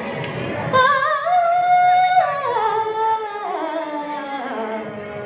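A girl singing an Urdu ghazal into a microphone: about a second in she takes up a long held note that wavers with ornaments, then slides down in steps.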